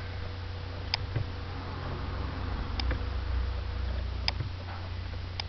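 Computer mouse button clicking, four short sharp clicks a second or two apart, over a steady low hum.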